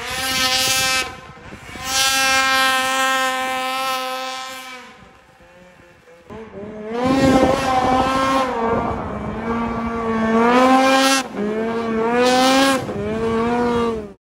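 Snowmobile engines revving high in a string of short passes: one brief burst, a longer run from about two to five seconds in, then from about six seconds on a run whose pitch dips and climbs several times.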